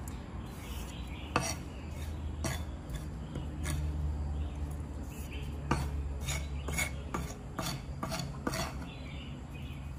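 Kitchen utensils clicking and scraping against a dish while food is worked: about a dozen sharp, irregular clicks, coming closer together in the second half, over a low steady hum.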